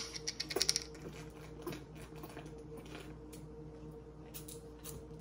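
Plastic drink bottle crackling and clicking in the hand as it is chugged: a quick run of sharp clicks in the first second, then faint scattered clicks and creaks.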